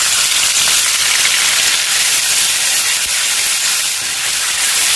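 Green chilli, ginger and cumin paste frying in hot refined oil in a kadai, sizzling with a steady, loud hiss as it is stirred.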